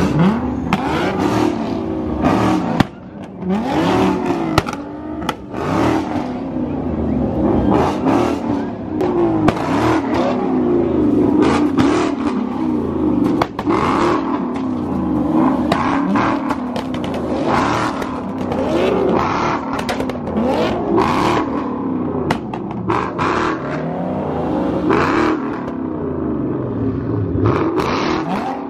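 Several car engines revving and accelerating, their pitch rising and falling over and over and overlapping, with scattered sharp cracks among them.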